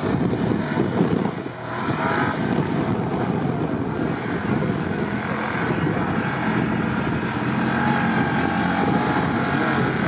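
Mercedes G-class Gelandewagen's engine running under load as it pushes through deep snow, with wind buffeting the microphone; the engine note comes through more steadily in the second half.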